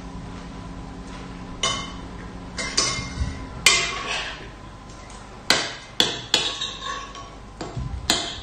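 Metal spoon and fork clinking and scraping against a stainless steel pot as food is served from it: several sharp, separate clinks at irregular moments.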